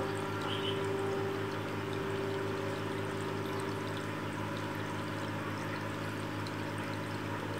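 Aquarium water running steadily, a rushing, trickling sound over a low steady hum.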